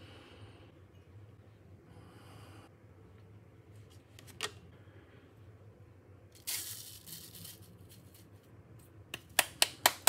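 Handling sounds of coffee-brewing gear: a single click, then a rustle lasting about a second, then five sharp clicks or taps in quick succession near the end.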